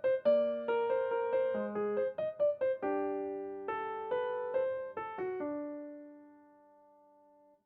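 Background music played on piano or electric piano: a melody of plucked-sounding notes ending in a held chord that fades out about six seconds in, followed by near silence.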